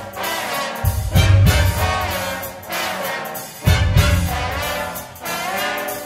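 Live big band playing loud brass phrases led by the trombones, the phrases swelling and bending in pitch. Strong low hits land about a second in and again near four seconds.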